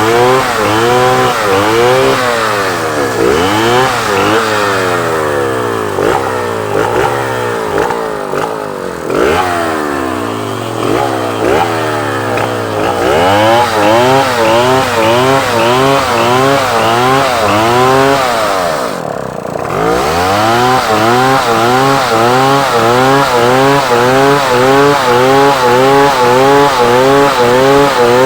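Two chainsaws cutting wood, their two-stroke engines revving up and down over and over, one rising as the other falls. About two-thirds of the way through the revs drop briefly and then climb again.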